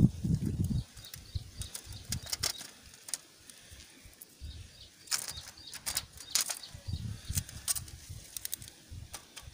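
Light handling clicks and taps of a copper head gasket being set over the cylinder studs, with irregular low rumbling buffets on the microphone.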